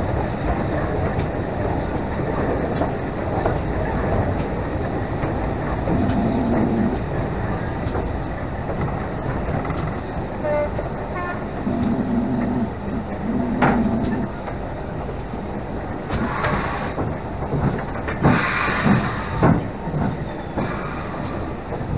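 GWR King class steam locomotive 6023 running along the track, heard from the footplate side: a steady rumble of wheels and motion with occasional clanks. Two bursts of hiss come in the last third.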